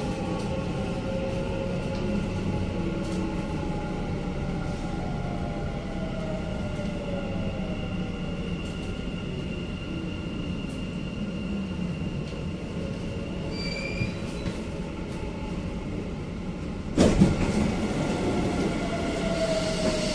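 Dubai Metro train running on elevated track: a steady rumble with a motor whine that glides down in pitch, and a short high chime about two-thirds through. Near the end a sudden loud rush as a train on the opposite track passes close alongside.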